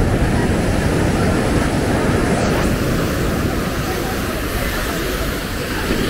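Ocean surf breaking and washing up the sand, with wind rumbling on the microphone and a background murmur of beachgoers' voices. The sound is a steady, even rush.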